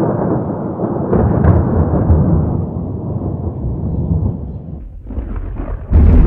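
Thunder from a passing thunderstorm: a long rolling rumble that starts suddenly, swells about a second in and dies away. Near the end a second, louder burst of rumbling noise starts suddenly.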